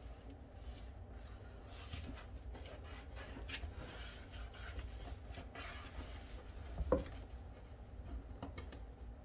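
Hands rubbing and smoothing freshly glued paper flat onto a cardstock file folder: a series of short dry brushing strokes, with one thump about seven seconds in.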